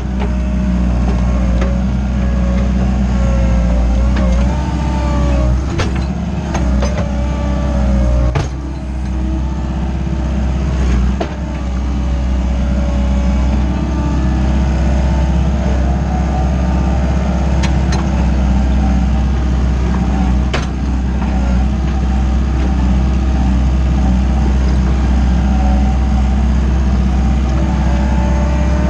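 Wacker Neuson 901s skid steer loader's 50 kW diesel engine running hard as the machine drives over rough dirt, heard from the operator's cab, with a whine that rises and falls. Several sharp clanks come from the machine between about five and eleven seconds in and again twice later.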